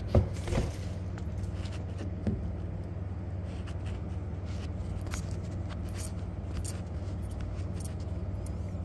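A camera set down on a steel motorcycle lift with a sharp knock just after the start, followed by a few smaller knocks and faint scattered clicks of handling over a steady low hum of the shop.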